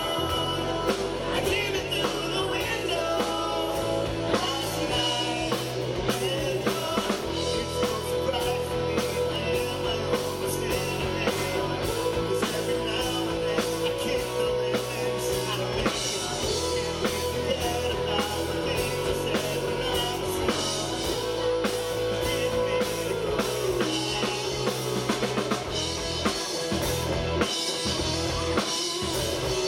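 Live rock band playing: electric guitars, bass guitar and drum kit with a steady beat, and a singer on vocals.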